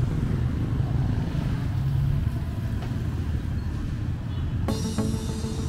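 Street traffic: motor tricycle and motorcycle engines running as they pass, a steady low rumble. About a second before the end, background music comes in.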